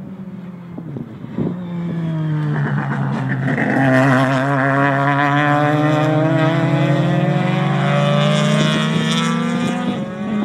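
Several race cars driving past on the circuit at speed, their engine notes overlapping. The sound grows louder over the first four seconds as the pack comes closest, then holds steady.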